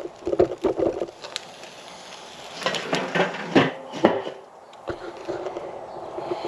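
Metal clinks and knocks at a Weber grill as the chicken on the grate is handled, a scattered run of short sharp hits over a steady background.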